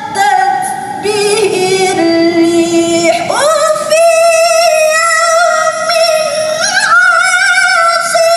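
A woman reciting the Quran in the melodic tilawah style into a microphone, holding long notes with fine wavering ornaments. A little over three seconds in, her voice sweeps up sharply to a high note, which she sustains with small turns through the rest of the phrase.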